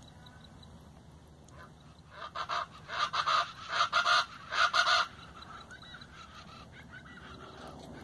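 A bird giving a rapid series of loud, honking calls from about two to five seconds in.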